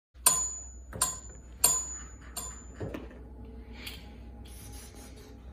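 Four sharp metallic clicks with a high ring, about two-thirds of a second apart, then softer taps and rustling: a floor lamp's metal pull chain knocking against the lamp's pole as a cat paws at it.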